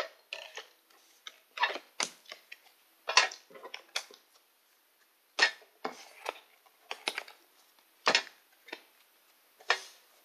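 Pokémon trading cards and metal collector tins being handled on a desk: about a dozen irregular clicks, taps and knocks as cards are sorted and put away in a tin.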